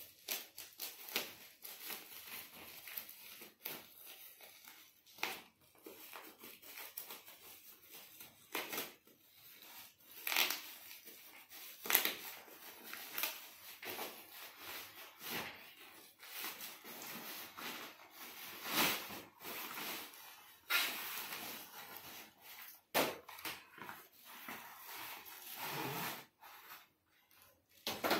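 A tape-wrapped plastic parcel being cut with scissors and torn open by hand: irregular rustling, crinkling and tearing with many short sharp crackles.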